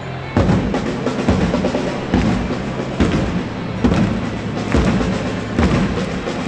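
Football supporters' drum starting up about a third of a second in and beating steadily, a little more than one beat a second, under the crowd's chant and clapping.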